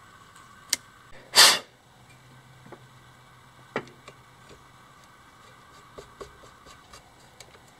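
Small metal clicks and taps as an electric trolling motor's brush plate and end cap are fitted and a screwdriver works on the cap, with one short, loud rush of noise about a second and a half in.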